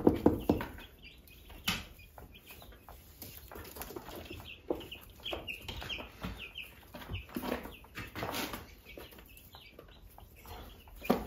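Chickens clucking on and off, mixed with soft knocks and scrapes from a paintbrush and a wooden hive frame being handled.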